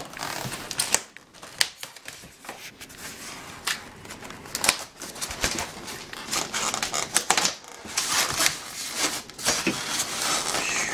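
Hands working in a styrofoam shipping box: irregular clicks, knocks and scrapes of foam inserts and packed parts being moved, with rustling of wrapping between them.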